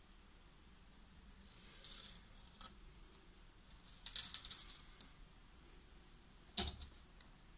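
Handling noise around a cardboard box: faint rustling, then about four seconds in a second of crackly scraping, and one sharp knock near the end.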